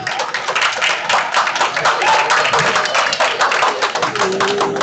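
An audience clapping steadily, with crowd voices mixed in.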